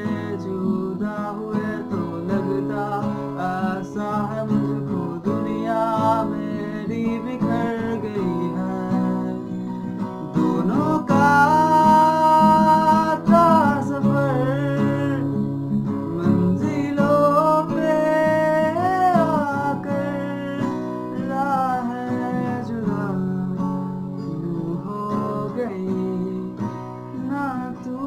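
A man singing a Hindi ballad over his own strummed acoustic guitar, played with a capo. The voice grows louder and climbs higher about eleven seconds in, then settles back.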